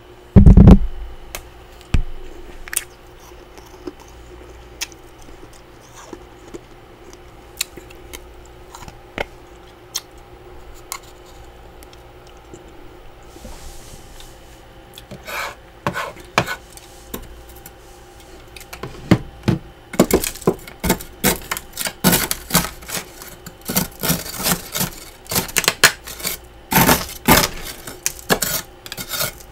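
A heavy thump about half a second in, then a few scattered knocks. From about twenty seconds on comes a fast run of scrapes and crunches: a utensil scraping and chipping thick built-up frost from the inside walls of a freezer.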